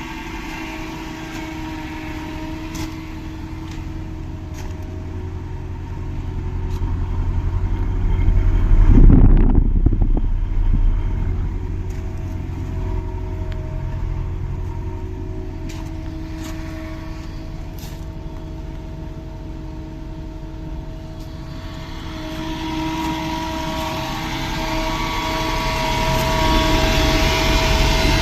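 Panasonic gas heat pump outdoor unit running: its gas engine drives the compressor, giving a steady engine-like hum with several held tones. A brief loud surge comes about a third of the way in, and near the end the sound grows louder with a rising hiss over the hum.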